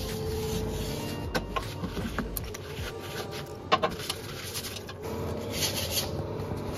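An old air conditioner hums steadily, under a few light clicks and knocks and a short stretch of rubbing from toiletry bottles being moved and a cloth wiping a bathroom sink.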